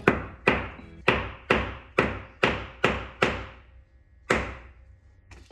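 Hammer blows on a seized part, eight strikes about two a second and then one more a second later, each with a short ringing tail.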